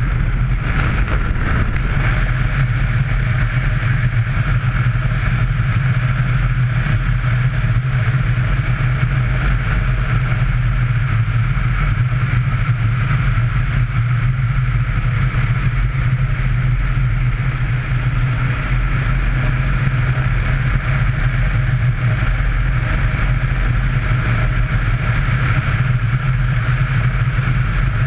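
Yamaha Ténéré motorcycle engine running steadily while riding at an even cruising speed, with road noise mixed in.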